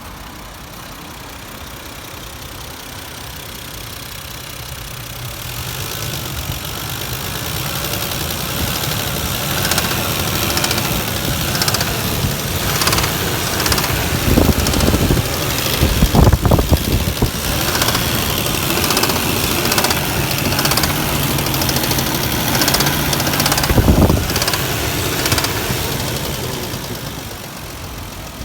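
Toyota 1JZ-GE 2.5-litre straight-six running with a knock from a spun bearing shell on cylinder 2. It grows louder over the first several seconds, with a few sharp louder surges in the middle and one near the end.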